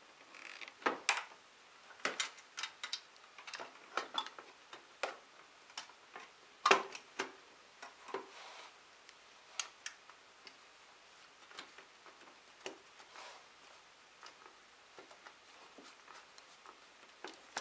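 Irregular clicks, taps and light knocks of a motorcycle headlight unit and its fairing parts being handled and fitted into place, with one sharper knock about seven seconds in.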